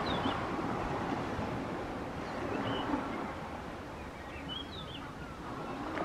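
Steady rushing outdoor noise of wind, with a few short, faint, high bird chirps spaced a second or two apart.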